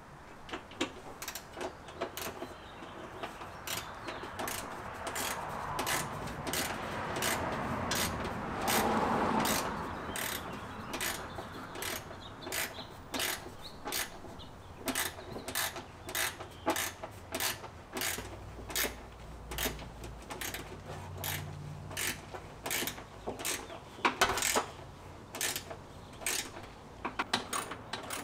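Hand ratchet wrench clicking in quick repeated strokes, about two to three clicks a second, with brief pauses. A broad rushing sound swells and fades about nine seconds in.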